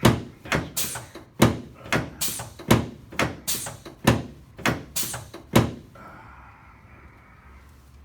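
Chiropractic drop table's cushion sections dropping in a rapid series of sharp thunks, about two a second, during a drop-piece adjustment; they stop about six seconds in, leaving a faint steady hum.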